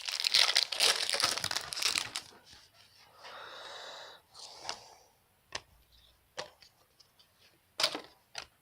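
A trading-card pack wrapper being torn open and crinkled for about two seconds, then the cards being handled: a soft rustle and a few scattered clicks.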